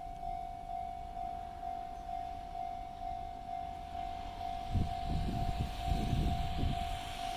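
Japanese level-crossing electronic warning bell ringing its 'kan-kan' tone steadily, about two strokes a second. From about four seconds in, the rushing noise of an approaching train builds up, with low irregular rumbles.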